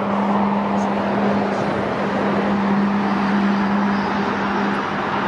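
Airbus A380's four jet engines at takeoff power during the takeoff roll: a loud, steady roar with a steady hum running through it.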